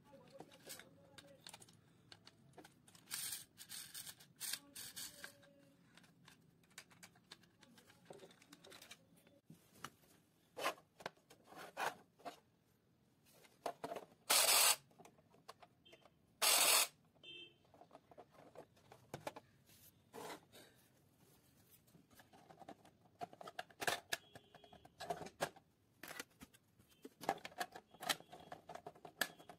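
Plastic housing of a toy coin bank being handled and fitted together: scattered light clicks and rubbing, with two louder bursts of handling noise about halfway through.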